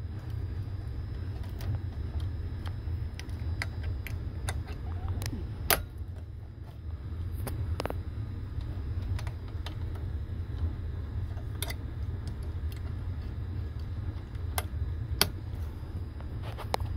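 Sharp clicks and light scraping of Class CC cartridge fuses being snapped into the metal fuse clips on an ABB VFD's fuse board, replacing blown fuses. A few single clicks are scattered through, over a steady low hum.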